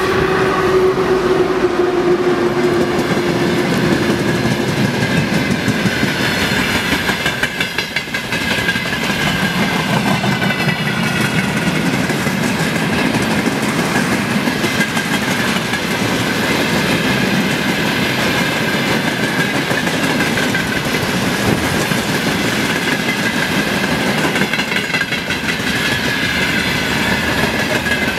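Freight train rolling past, its wagons clattering over the rail joints. A steady tone falls slightly in pitch over the first few seconds, and a faint high ring runs under the clatter.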